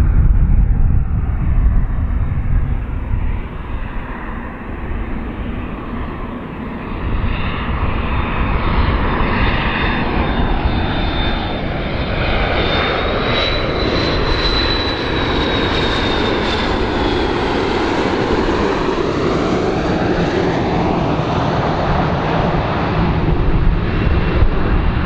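McDonnell Douglas MD-82 airliner on landing approach, its two rear-mounted Pratt & Whitney JT8D-200-series turbofan engines running with a deep jet rumble and a high whine. The sound grows louder in the first seconds as the plane nears, and the whine rises and then falls in pitch around the middle as it passes.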